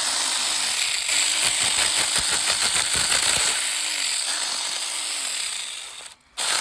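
Saker 20-volt cordless mini chainsaw running and cutting through a branch, its motor pitch dipping again and again as the chain bites, with a rattling chatter in the middle of the cut. The sound breaks off briefly near the end.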